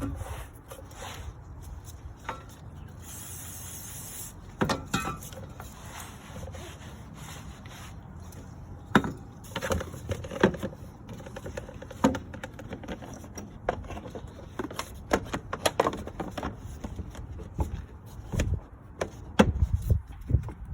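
Irregular knocks, clicks and scraping, with a brief hiss about three seconds in.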